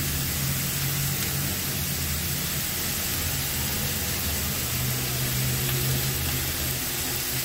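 Diced ash gourd and green chillies frying in a kadai on a gas stove: a steady sizzle, over a low steady hum.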